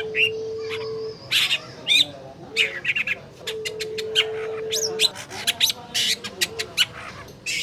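Long-tailed shrike (cendet) song: a rapid, varied run of short sharp chips and quick rising and falling whistles, with a long low steady whistle held for over a second at the start and again about three and a half seconds in.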